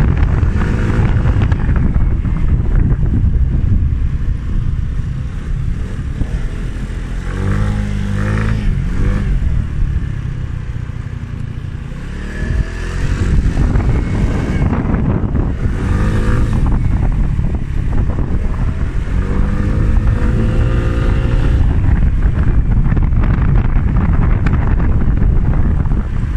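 Wind rumbling on the microphone of a moving scooter, with the scooter's small engine running underneath. The engine rises in pitch twice, about a third of the way in and again past the middle, as it accelerates.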